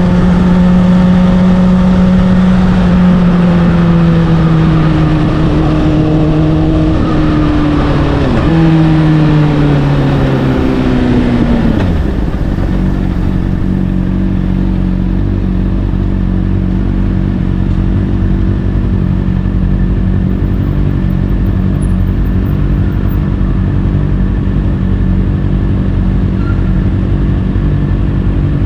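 Honda CBR600RR inline-four through an Akrapovic exhaust, engine note falling as the bike slows, with a brief rev blip on a downshift about eight seconds in. About twelve seconds in the pitch drops away and the engine settles into a steady, even idle.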